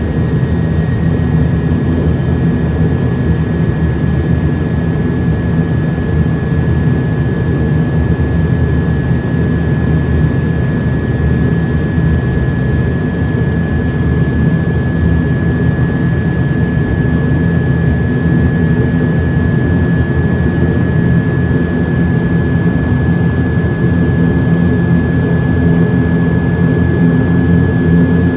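ATR 72's turboprop engines running at taxi power, heard from inside the passenger cabin: a steady drone with a thin high-pitched whine over it.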